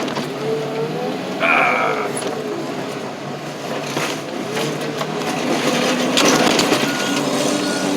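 Car engine revving hard and unevenly, its pitch rising and falling, as it is driven flat out in a deliberate attempt to blow the engine. There is a brief high-pitched squeal about a second and a half in.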